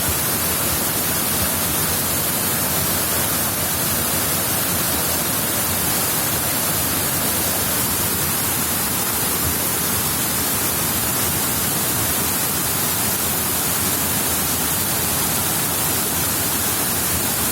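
Waterfall rushing, a steady loud hiss of falling water with no change.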